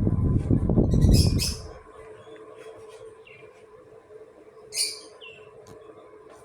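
Daitoshi 56" ceiling fan running with a steady hum, a low rumble of moving air on the microphone for the first couple of seconds. Birds chirp briefly twice, about a second in and near five seconds in.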